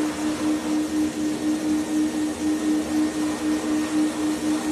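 A steady machine hum, its low tone pulsing evenly about five times a second.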